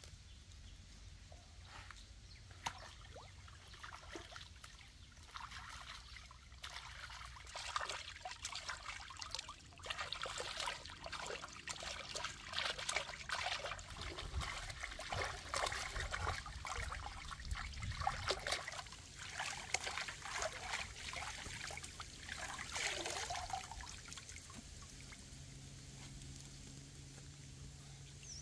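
Creek water splashing and trickling as vegetables are rinsed by hand in a woven basket dipped in the stream: irregular splashes and drips that build up after the first few seconds and die down near the end.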